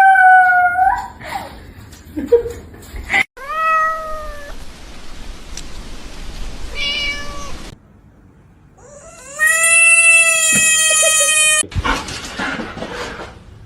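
Cats meowing: four drawn-out meows, one short and higher-pitched, the last and loudest held for about two seconds.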